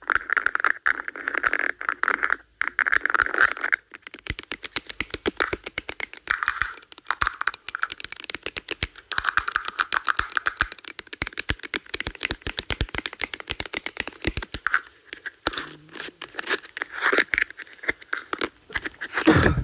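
Cups handled as an ASMR trigger: a dense, irregular run of crinkling, tapping and scratching clicks, with a stretch of rubbing in the first few seconds.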